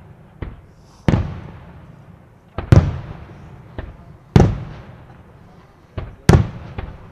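Aerial firework shells bursting overhead: four loud booms about one and a half seconds apart, one of them doubled, with smaller pops between. Each trails off in a long echo.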